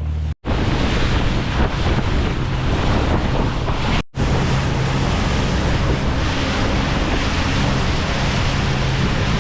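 Wind buffeting the microphone over the rush of water along a boat underway at sea, with a steady low engine drone underneath. The sound drops out briefly twice.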